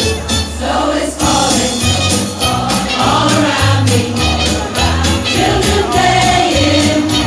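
A mixed choir of carol singers singing a Christmas carol, accompanied by a steady beat and low bass notes.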